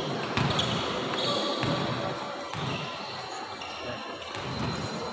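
Volleyball being played in a gymnasium: the ball hitting hands and the floor with sharp knocks over the steady noise of the hall crowd, along with short high squeaks.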